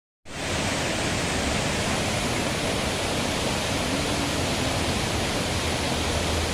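Waterfall pouring over rocks: a steady, loud rushing of falling water.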